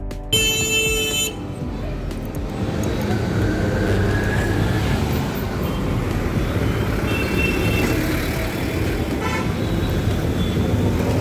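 Busy road traffic: engines of passing buses, auto-rickshaws, cars and motorbikes, with vehicle horns honking. A loud horn blast about half a second in, then several shorter honks later on.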